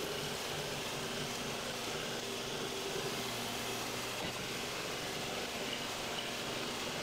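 Milling machine drilling metal blocks under a flood of coolant: a steady whirring hiss of the spindle and spraying coolant, with a faint hum underneath.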